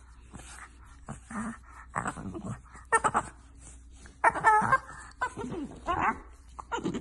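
A dog making a series of short whining calls, several of them wavering up and down in pitch, the longest about four to five seconds in.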